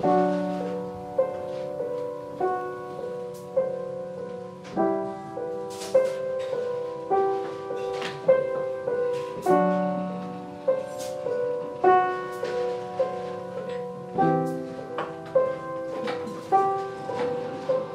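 Piano playing a slow, repeating figure of broken chords, a note about every half second, over a low note struck anew about every five seconds.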